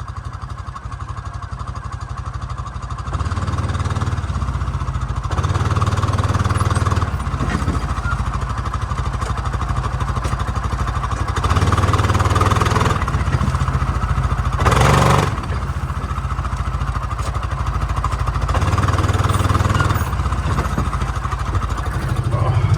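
Coleman Outfitter 550 UTV engine running while the machine drives slowly ahead with its dump bed raised, its sound swelling and easing off several times. A short loud burst of noise breaks in about fifteen seconds in.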